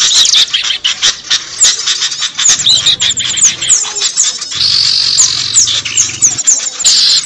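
Bird-luring recording of many small songbirds calling at once: a dense, loud chatter of rapid chirps and quick whistled sweeps, with a harsh buzzing call from about four and a half seconds in and again near the end.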